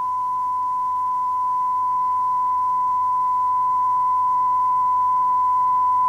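Steady pure 1 kHz sine test tone, one unbroken note growing slowly louder, played as an ear-training example of what a 1 kHz frequency sounds like.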